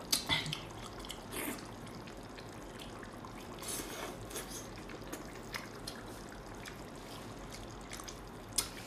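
Wet mouth sounds of a person eating a whole spicy sauced octopus: sucking and smacking on the tentacles in scattered short, sticky clicks. The sharpest clicks come at the very start and about a second before the end.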